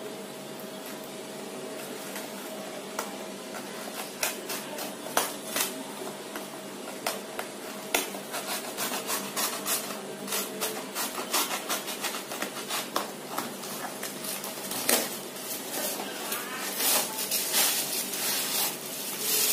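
Utility knife cutting and scraping along the taped edge of a parcel, with irregular clicks and scratches, then plastic bags crinkling as the contents are pulled out near the end. A faint steady hum runs underneath.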